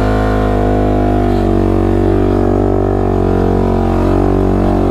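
Dirt bike engine running at a steady throttle: a loud, even drone whose pitch dips slightly about a second and a half in.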